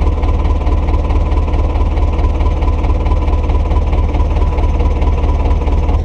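Diesel engine running steadily at a constant speed, with a rapid, even firing pulse and a faint steady whine above it.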